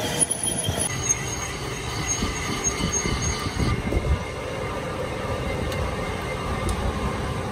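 Metal lathe running while a tool bit faces the end of a spinning metal disc, with a steady machine rumble. A thin high-pitched whine from the cut lasts through the first half and stops suddenly about three and a half seconds in.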